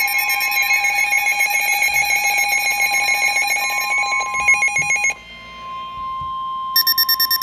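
Emergency Alert System alert tones for a severe thunderstorm warning. A steady electronic tone is layered with fast, buzzy pulsing beeps. The beeps drop out about five seconds in, leaving the steady tone alone, and then rapid high beeps start up again near the end.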